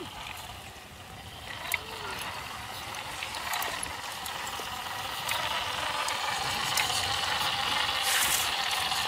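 Radio-controlled Unimog model truck driving over dirt: the electric drive and gearbox whine steadily, getting louder as the truck comes closer, with small ticks of tyres on grit and a short hiss near the end.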